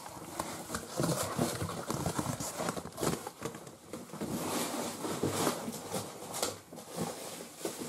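Rustling and irregular light knocking and clicking as the contents of an opened mail-order parcel of small bagged bead and jewellery-making supplies are handled.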